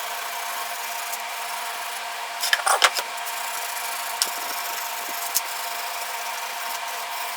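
Coarse steel wool rubbed back and forth along the live edge of a wooden board, smoothing it after wire-brushing: a steady scratchy rubbing, with a few louder scrapes about two and a half to three seconds in.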